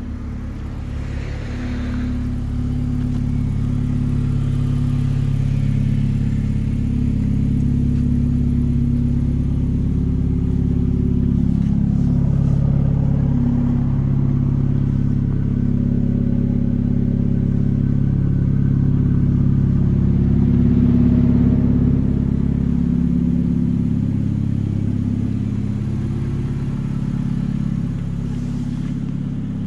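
Tuned Renault Mégane 4 RS phase 2's 1.8-litre turbocharged four-cylinder idling steadily, a low even engine note that swells slightly about twenty seconds in.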